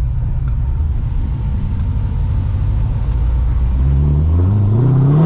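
Corvette C6's supercharged LS3 V8, heard inside the cabin, rumbling low and steady, then revving up with a rising pitch about four seconds in as it accelerates.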